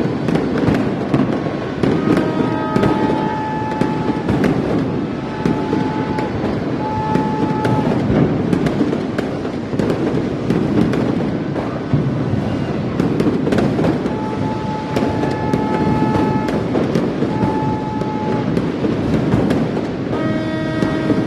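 Many fireworks and firecrackers going off at once: a dense, continuous crackle of bangs. Held steady tones sound over it several times.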